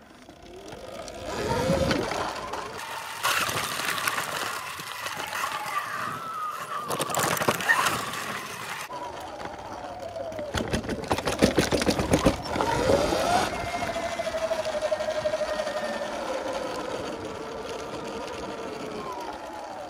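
Segway X260 electric dirt bike's motor whining, its pitch rising and falling as the bike speeds up and slows, over wind and tyre noise. A clatter of rattling knocks comes partway through as the bike goes over bumps.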